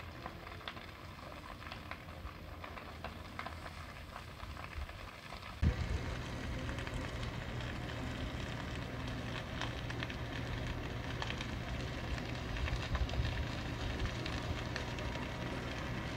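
Burning brush and grass crackling and popping over a steady rush. About six seconds in, the sound changes abruptly with a knock, becomes louder, and a steady low hum joins it.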